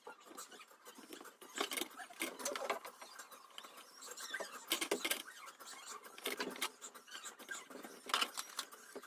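Irregular clicks, taps and scraping as the plastic case of a small MP3 speaker is handled and worked on with tools.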